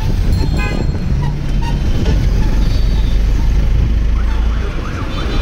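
Bajaj Pulsar UG3 motorcycle's single-cylinder engine running under way in city traffic, a steady low rumble mixed with road noise. A short toot from a horn in the traffic sounds about half a second in.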